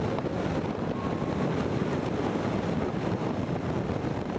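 Speedboat running fast over open water: a steady rush of engine and water, with wind buffeting the microphone.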